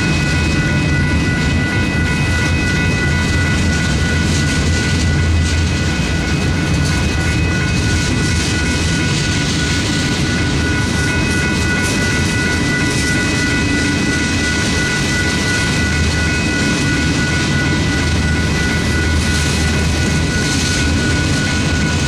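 Freight cars rolling past at a grade crossing, a steady low rumble of wheels on rail. Over it the crossing bell rings steadily with a rapid pulse.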